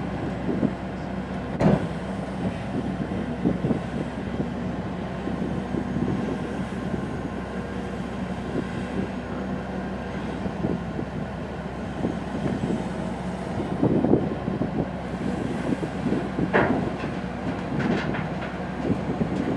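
Bucyrus RH120E hydraulic face shovel and dump truck running steadily while loading earth, with scattered loud clanks and knocks.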